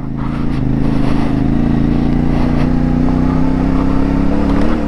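CFMoto 450MT's parallel-twin engine with its 270-degree crank, running under load at fairly steady revs, which rise slightly near the end.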